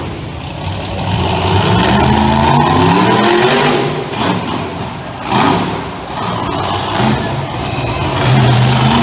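Monster truck engine revving hard in repeated surges, its pitch climbing and falling, as the truck drives up onto a row of junk cars. A short loud burst of noise comes about five seconds in.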